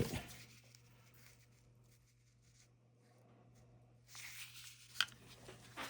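Faint rubbing of a microfiber cloth over a metal Zippo lighter as it is polished with Brasso, starting about four seconds in, with one sharp click about a second later, over a steady low hum.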